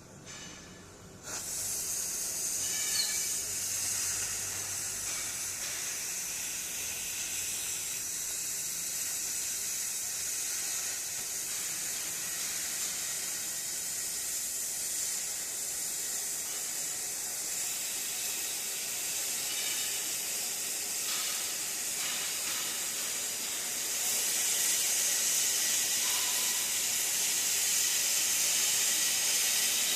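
Gas cutting torch on a track cutting machine hissing steadily as it burns through 10 mm Hardox steel plate. The hiss starts about a second in and gets louder near the end.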